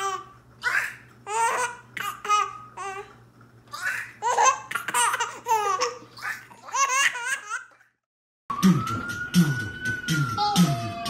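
A baby laughing hard in a long run of short bursts for about eight seconds. It stops abruptly, and after a brief gap a man's mouth makes repeated low beatbox-like beats.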